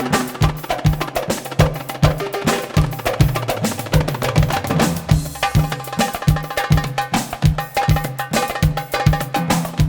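Music: a fast darbuka (goblet drum) solo, deep strokes and sharp slaps in a steady, driving rhythm.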